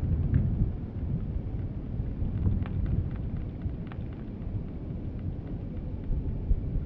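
Low, steady rumble of a Boeing 747's four jet engines as the airliner rolls out on the runway just after touchdown, heard from a distance.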